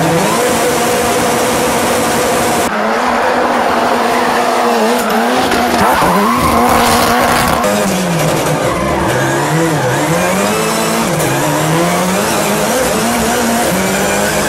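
Highly modified 650 bhp four-wheel-drive Ford Fiesta rally car driven hard: its engine is held high in the revs, dipping and climbing back again and again, over continuous tyre squeal and skidding as it drifts.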